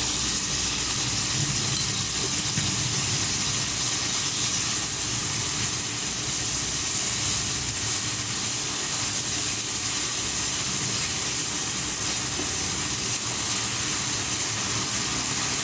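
Steady sizzling of anchovies with shallots, garlic, dried chili and tomato frying in hot oil in a pan, with a low steady rumble underneath.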